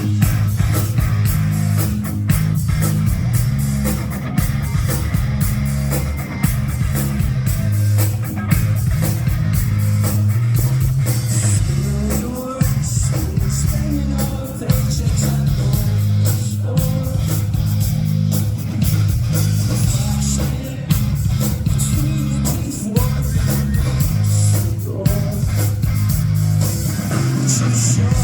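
Live rock band playing: distorted electric guitars, bass guitar and drum kit, with singing, loud and heavy on the bass as heard from the crowd.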